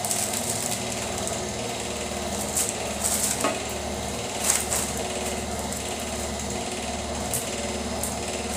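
Hand-built cotton candy machine running: the motor spinning the sugar head with a steady low hum and fast rattling pulse. A few sharp clicks stand out around the middle and near the end.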